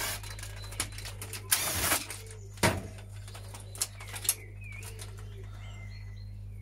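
Handling a plastic CD cassette player casing and a cordless drill driver: a short rasping burst about one and a half seconds in, then a sharp knock as the drill is set down on the glass-topped table, followed by a few light clicks of plastic parts, over a steady low hum.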